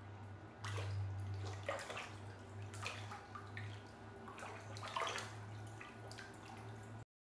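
Hot-spring bath water trickling and splashing, in irregular strokes, over a steady low hum.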